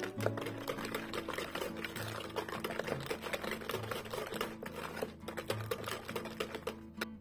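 Wire whisk beating a liquid mixture in a glass bowl: fast, continuous clicking and rattling of the wires against the glass, which stops suddenly near the end.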